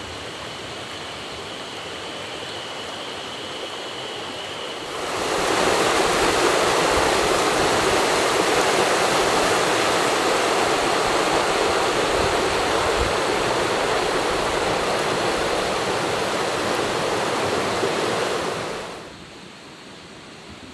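River water flowing, a steady rush that grows much louder about five seconds in and falls back to a softer murmur near the end.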